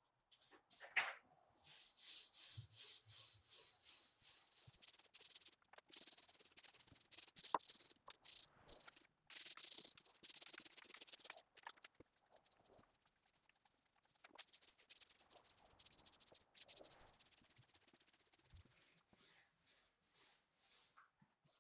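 Small paint roller rolling paint across an MDF panel: a hissing swish in repeated back-and-forth strokes, fainter in the last few seconds. A short knock sounds about a second in.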